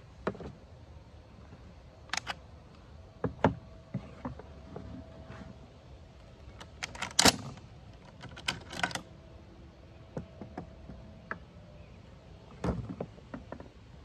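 Scattered metal clicks and knocks of a Swiss M1911 Schmidt-Rubin rifle being taken apart by hand: the magazine and other parts being removed and set down on a wooden table. The loudest knock comes about seven seconds in, with a quick cluster of clicks a little after.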